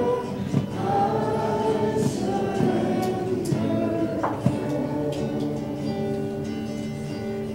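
A church congregation singing a hymn together, many voices holding long sustained notes.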